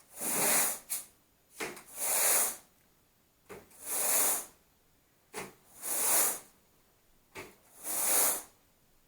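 Carpet grooming rake being drawn through dry, thick carpet in repeated strokes: a soft tap as the rake is set down, then a swish of about half a second to a second as it is pulled, roughly one stroke every two seconds.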